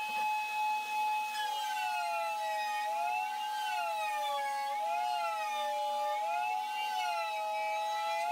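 A table-mounted router runs with a steady high whine. From about a second and a half in, a second tone sags in pitch and recovers several times as the board is fed past the bit, the motor bogging under the cutting load, and it climbs back toward full speed near the end.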